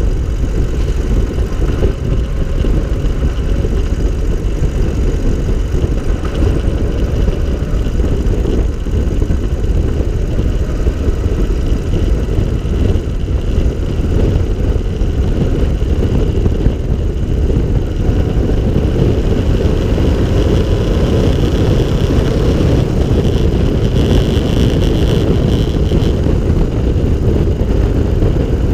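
Open three-wheeled cyclecar driving along, heard from its cockpit: the engine runs steadily under way with a dense, low rush of wind and road noise over it.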